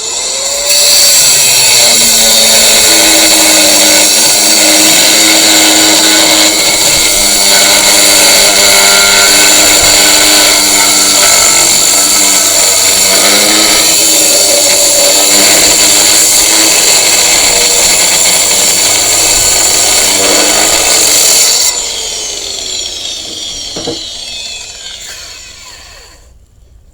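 Angle grinder spinning up and cutting into the steel of a log splitter, running steadily under load for about twenty seconds, its pitch wavering as it bites. It is then switched off and winds down with a falling whine.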